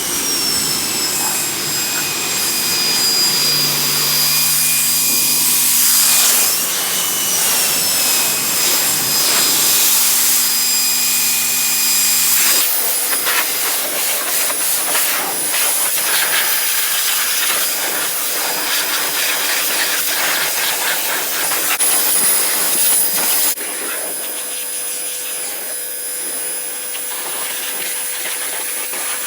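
Ryobi 1900 psi electric pressure washer running and spraying water through its turbo nozzle: a loud, steady hiss of spray over the motor's high whine, which drops in pitch right at the start and dips once more a few seconds later. The sound changes abruptly twice.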